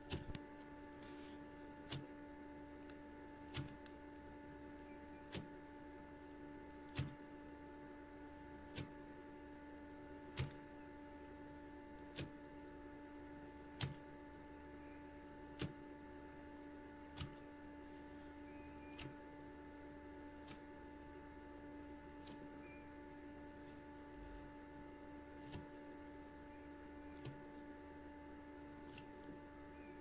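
LG WD-14370FD front-loading washing machine tumbling a wet wash load: a quiet, steady motor hum with a short knock about every 1.7 seconds as the laundry drops in the turning drum, the knocks growing weaker in the second half.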